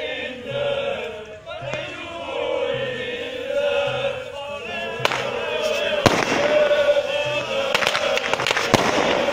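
A crowd of football supporters chanting together. From about five seconds in, firecrackers start popping among the chant, sharp bangs that come more thickly near the end.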